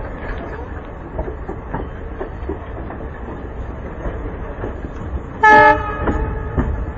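Train coaches running with a steady rumble and clickety-clack of wheels over rail joints, heard from aboard. About five and a half seconds in, the hauling WDM 3A diesel locomotive sounds a short, loud horn blast.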